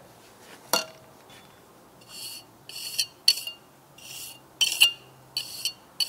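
Steel pointing trowel tip scraping over fresh mortar in the perp joints of a brick wall, in short repeated strokes about twice a second. The strokes strike a bird's beak (double-struck) joint. A single light tap comes about a second in, before the strokes begin.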